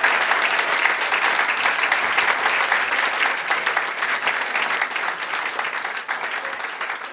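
Audience applauding with dense, irregular clapping that slowly dies down.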